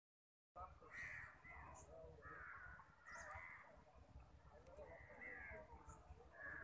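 Crows cawing repeatedly, short harsh calls every second or so, over a faint low rumble.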